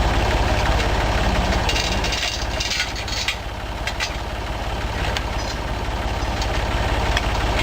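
Standard Vanguard four-cylinder engine idling steadily with an even low pulse, with a few brief hissing, clattering noises between about two and three seconds in.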